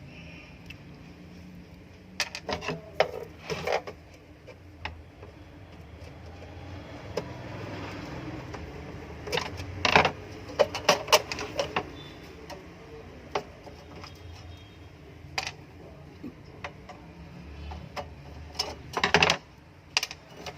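Clicks and taps of a screwdriver and small screws as the four screws are undone from the underside of a plastic hand impulse sealer and its casing is opened, coming in several short clusters.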